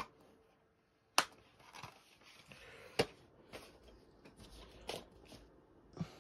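Handling noises from a plastic DVD case being put down on a duvet: a sharp click about a second in, another about three seconds in and two softer ones later, with quiet rustling between.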